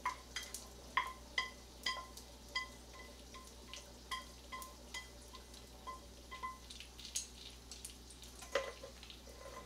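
Light, irregular taps of wooden chopsticks on a metal pot, about two a second, each leaving a short bell-like ring from the metal, as the few cooked noodle strands stuck to the pot are knocked loose. A slightly louder clatter comes near the end.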